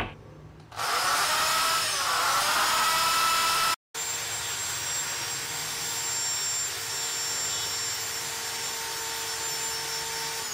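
Corded electric drill boring a hole into a metal motorcycle exhaust silencer (dB killer). The motor runs under load, its pitch sagging and recovering about two seconds in. It cuts out briefly, then runs steadily and slightly quieter, and winds down in pitch at the end.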